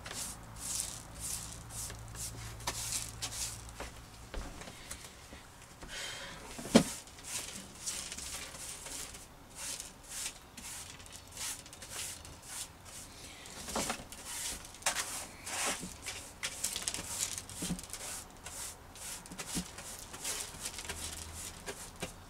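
Broken microwave glass being gathered up and brushed across a hard floor: many short scratchy rustles and light clinks of glass shards, with one sharp knock about seven seconds in.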